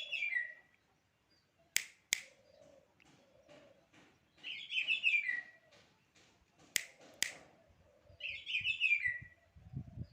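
Black-naped oriole singing short fluty phrases of whistled notes, each ending on a falling note, three times about four seconds apart. Between the phrases come two pairs of sharp clicks.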